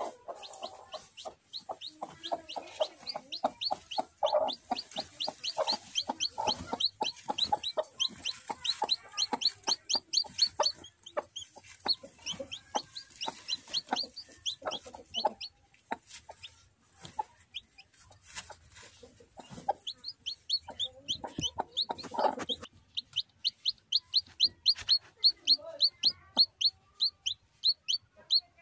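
Newly hatched chicks peeping in long runs of short, high cheeps, several a second, loudest near the end, while the brooding hen clucks low over them.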